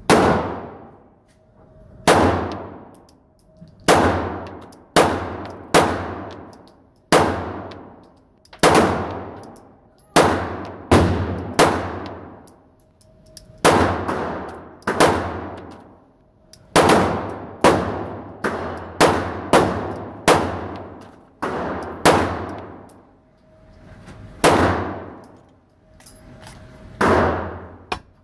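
Glock 19 9mm pistol firing steel-cased ammunition, about twenty shots at an uneven pace, some in quick pairs, with each sharp report ringing out in the echo of an indoor range.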